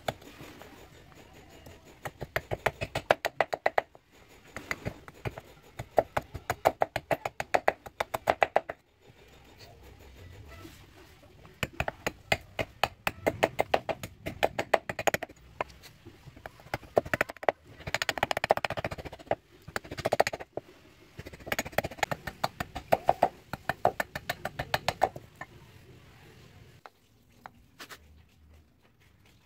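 A heavy chopper blade shaving a wooden knife-handle blank on a log stump: quick runs of sharp wooden knocks, several a second, in bursts with short pauses. It goes quieter near the end.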